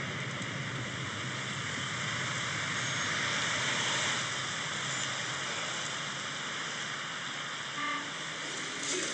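Steady road traffic noise, swelling slightly about three to four seconds in.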